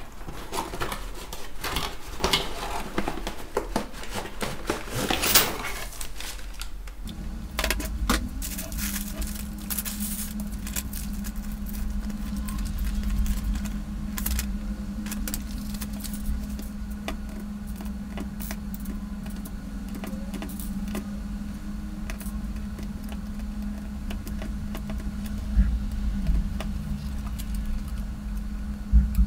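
Hands unpacking a Lite-Brite toy: cardboard and paper rustling and scraping for the first several seconds, then scattered small clicks and taps of the plastic pegboard and pegs being handled. A steady low hum starts about seven seconds in and runs under the clicks.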